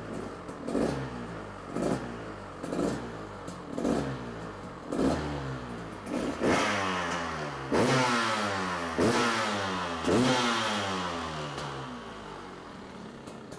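Single-cylinder two-stroke engine of a 2015 KTM 300 XC-W with a freshly rebuilt top end, running while the throttle is blipped about once a second. Each blip sends the revs up, and they fall back after it. The last few blips are the strongest, then the revs sink away and the sound fades near the end.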